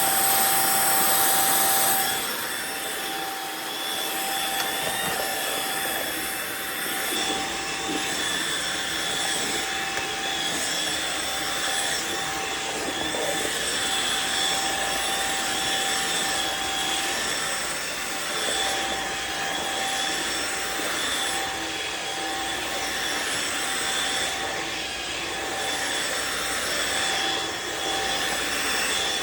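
Riccar R70 floor washer running as it is pushed over the floor: a steady motor whine over suction and brush-roll noise, a little quieter after about two seconds.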